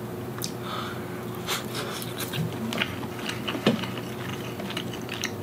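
Chewing of a freshly peeled, salt-grilled shrimp: soft, scattered wet mouth clicks, over a faint steady hum.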